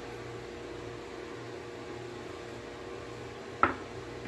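Steady appliance hum with fan-like noise from the kitchen, with one short sharp clink about three and a half seconds in.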